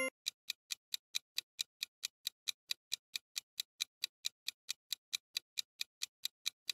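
Quiz countdown-timer sound effect: a clock-like tick repeating evenly, about four to five ticks a second.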